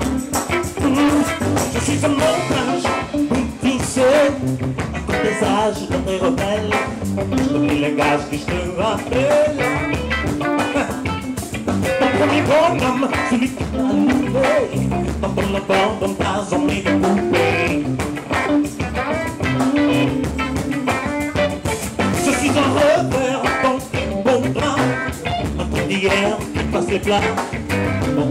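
Live funk band playing a groove on electric guitar, bass guitar and drum kit.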